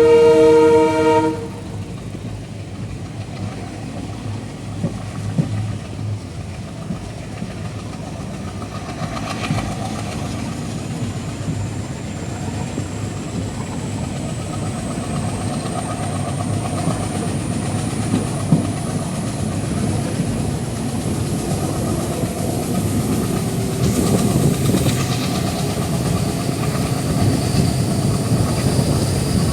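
Passenger train's horn sounding a chord that cuts off about a second in. Then the train runs on the track and picks up speed: a steady rumble of wheels that grows louder, with a faint whine rising in pitch.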